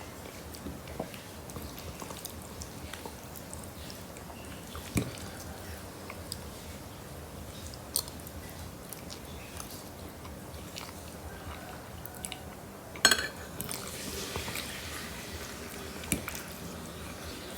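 A person chewing and eating spaghetti and meatballs, with a few sharp clicks. A short, louder noisy burst about thirteen seconds in, then a couple of seconds of hiss.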